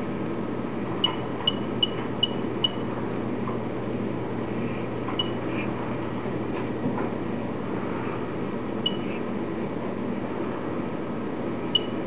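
Short high-pitched beeps from a touch-screen controller's buzzer, the key-press feedback of an espresso machine's touch panel: five in quick succession about a second in, then three single beeps spaced several seconds apart, over a steady low background hum.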